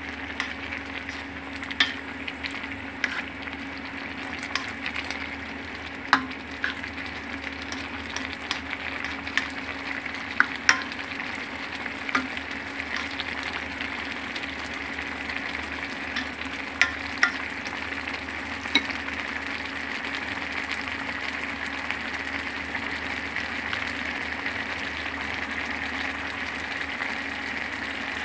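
Food sizzling in a hot pan as it is stir-fried, with a utensil clinking sharply against the pan now and then. The clinks stop about two-thirds of the way through and the sizzle carries on steadily.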